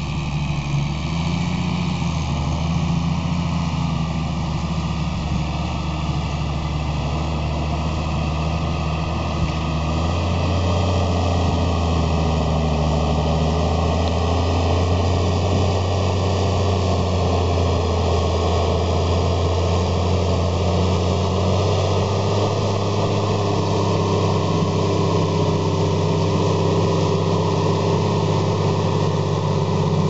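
New Holland TM155 tractor's six-cylinder diesel engine running steadily under load while pulling a five-furrow plough through stubble. The engine note grows a little louder about a third of the way in as the tractor draws closer.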